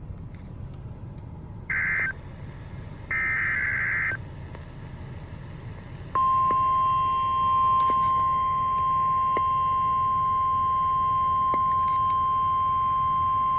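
Two short warbling bursts of Emergency Alert System (SAME) digital header data. About halfway in, the steady NOAA Weather Radio 1050 Hz warning alarm tone starts and holds without a break, announcing a new severe thunderstorm warning.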